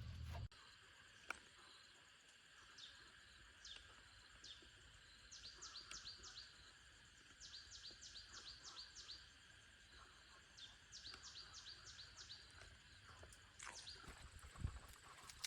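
Small bird calling: short, high, downward-sliding chirps, a few single ones and then quick runs of five or six in a row, faint over a quiet outdoor background.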